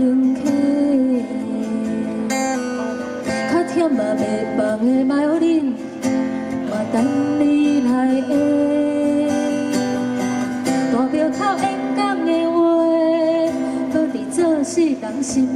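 A woman singing a slow Taiwanese Hokkien song into a microphone, with a strummed acoustic guitar accompanying her.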